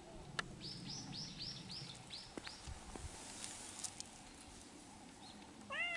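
A small bird calls a quick run of about seven high, down-slurred notes, with a few light clicks. Near the end a cat meows once, the loudest sound.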